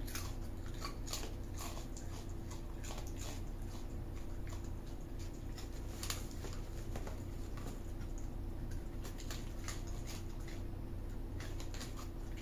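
A raccoon crunching Cheetos and rummaging with its snout in the crinkly chip bag: irregular sharp crackles and crunches throughout, over a steady low hum.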